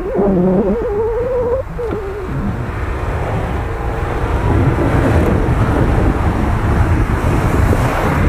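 Mitsubishi Pajero Sport SUV climbing a snowy slope under hard throttle, engine revving and tyres churning snow, getting louder as it comes close. A wavering, hooting tone sounds in the first couple of seconds.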